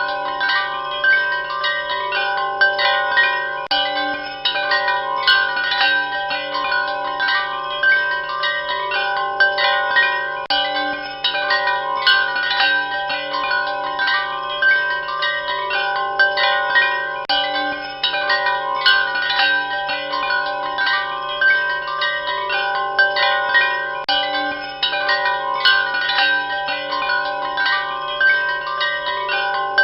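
Wind chimes ringing without pause, struck irregularly several times a second, many overlapping bell-like tones sustaining into one another. A faint steady low hum lies underneath.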